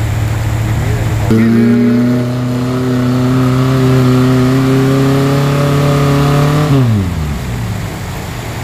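Off-road vehicle engine running low, then revved hard about a second in and held at high revs, rising slightly, for about five seconds before the throttle is released and the revs fall away near the end.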